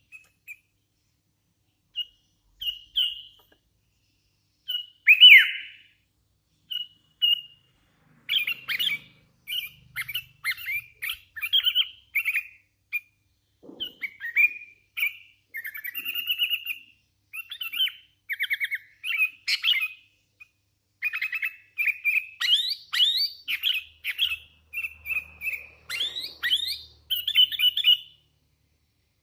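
Hand-reared sooty-headed bulbul (kutilang) singing in short, sharp chirping notes. A few scattered phrases come over the first several seconds, then the chirps run almost without pause.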